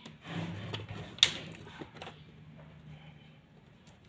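Pliers working at a cable's black plastic sheathing: rustling and scraping, one sharp click about a second in, then a few lighter ticks.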